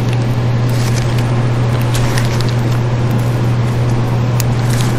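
A loud steady low hum runs throughout. Over it, a few faint light clicks come from a steel piston ring being worked by hand around into its groove on a small-engine piston.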